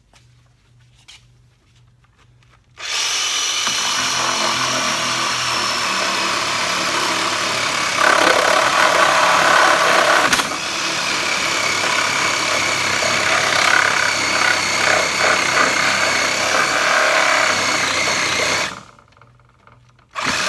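Reciprocating saw starting about three seconds in and running steadily through pallet wood for some sixteen seconds, louder for a couple of seconds midway as it bites harder, then stopping; a short burst of the saw comes near the end.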